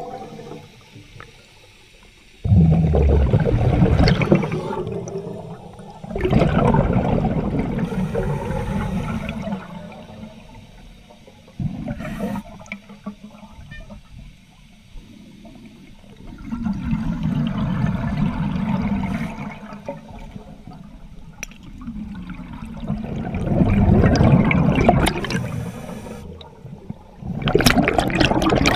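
Underwater bubbling and gurgling in surges that come back every four to six seconds with quieter gaps between: the exhaled bubbles from a scuba diver's regulator.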